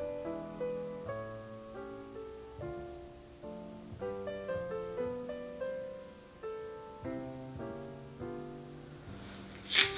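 Background music: a gentle melody of single piano notes, each struck and fading away.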